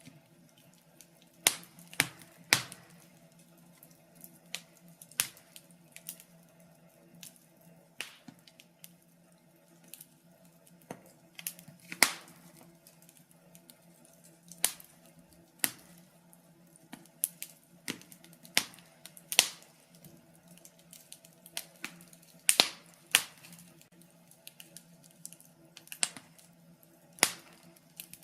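Wood fire crackling in a fireplace: irregular sharp pops and snaps, a few much louder than the rest, over a faint steady hum.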